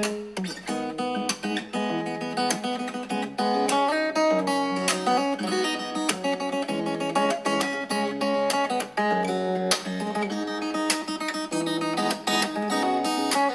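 Acoustic guitar playing a busy run of plucked notes and chords.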